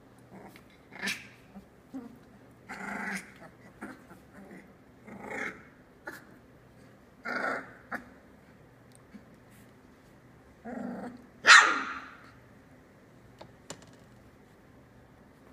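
Three-week-old Australian Labradoodle puppies growling and yapping in play as they wrestle, in short separate cries every second or two, the loudest a sharp high cry about three-quarters of the way through.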